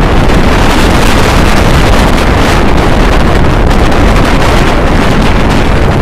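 Loud, steady wind buffeting the microphone, over the rumble of a moving vehicle.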